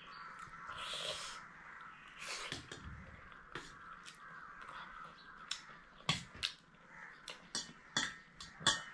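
Close-up eating sounds: chewing chicken momo, with sharp mouth clicks and a fork clinking on a metal plate, coming more often in the second half.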